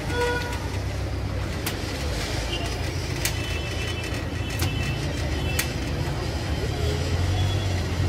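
Street traffic at a taxi stand: a steady low rumble of vehicle engines, with sharp clicks now and then and faint voices.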